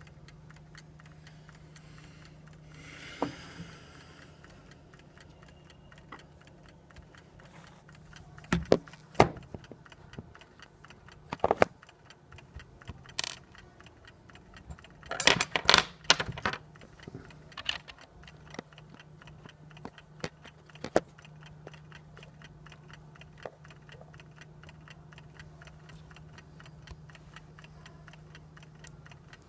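A clock ticking steadily, with irregular clinks and clatters of small metal parts being handled, clustered around the middle. A low steady hum runs underneath.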